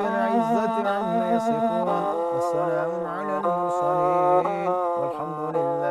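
Background music: a slow melody of long held notes over a sustained low note.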